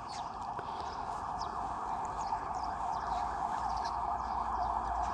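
Small birds chirping in short, faint calls over a steady rushing background noise that grows slightly louder.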